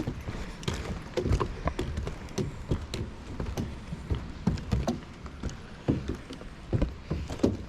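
Footsteps of hikers walking a trail: an irregular run of crunching steps and small knocks of carried gear, several a second.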